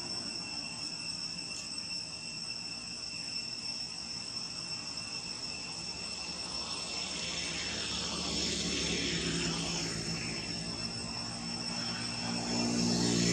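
Insects chirring steadily at two high pitches. From about halfway through, the drone of a passing aircraft's engine rises over them and grows louder toward the end.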